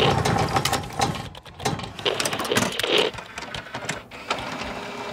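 Stock sound effect for an animated logo intro: a rapid mechanical clatter of clicks and rattles with a few short swells of noise, thinning out toward the end.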